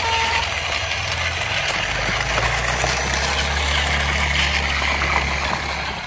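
An engine running steadily with a low hum, its tone shifting and growing fuller about two seconds in, under a constant hiss of noise.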